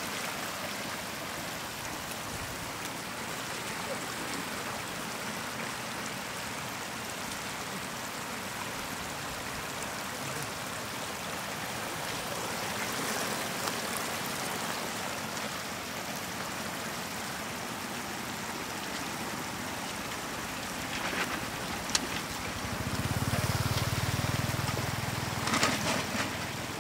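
Shallow floodwater running steadily over the ground in an even rush. Near the end there are a few sharp splashes or knocks and a low hum lasting a couple of seconds.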